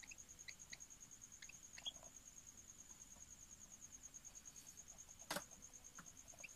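Near silence with a few faint, short high chirps from a lovebird in the first two seconds and one sharp click about five seconds in, over a faint steady high-pitched pulsing tone.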